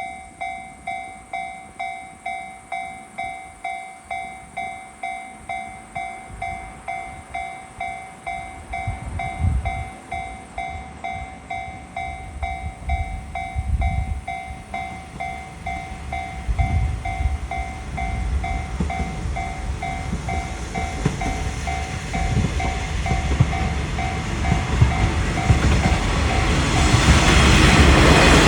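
Japanese level-crossing warning bell dinging in a steady rapid rhythm. Under it, the approaching Kawasemi Yamasemi limited-express diesel railcar rumbles and clatters, growing louder until it drowns out the bell near the end.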